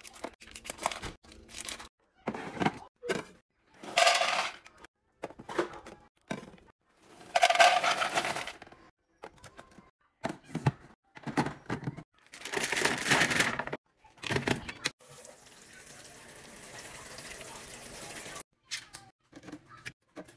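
Handling of packaged snacks and clear plastic storage bins: wrappers and pouches rustling and knocking as they are dropped in, in a string of short separate bursts and knocks. Near the end a steady hiss builds slowly for a few seconds, then stops.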